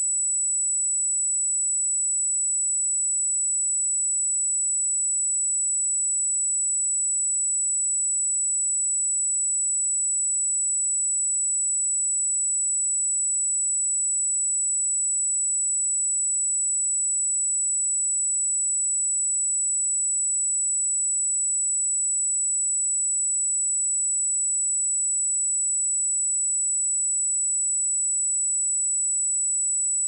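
A steady, high-pitched 7914 Hz sine-wave test tone, one pure pitch held at an unchanging level.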